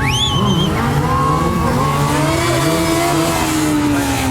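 Stunt motorcycle engine revving, its pitch climbing and then falling away over a few seconds. A short, high squeal glides up in pitch right at the start.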